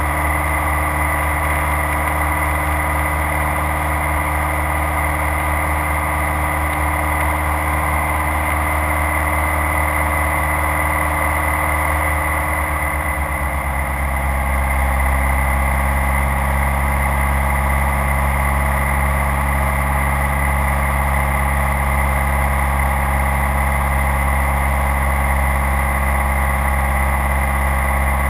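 Light aircraft's engine and propeller droning steadily, heard inside the cockpit. About halfway through, the low hum shifts in pitch and grows slightly louder, then holds steady.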